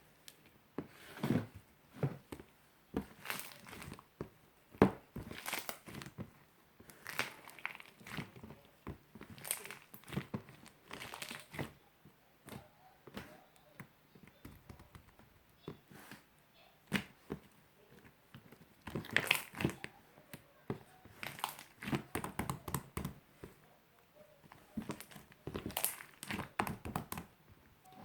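Purple marbled slime being squished and stretched by hand, giving irregular crackles, pops and squelches that come in uneven clusters, busiest around the middle and near the end.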